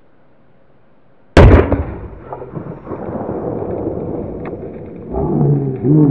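A large firecracker explodes under an upturned metal cooking pot, blasting the pot into the air: one sharp, very loud bang about a second in, followed by a long rolling echo. Near the end a person's voice shouts.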